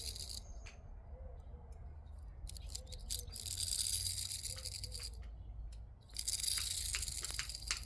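Nylon fishing leader line being pulled off its spool in long pulls: a hissing rattle with scattered clicks, the loudest pull starting about six seconds in.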